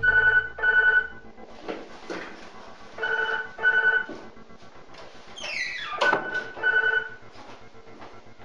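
Desk telephone ringing in the British double-ring pattern: three pairs of short electronic trills about three seconds apart. Between the rings there is movement noise and a short falling swish just before the third pair.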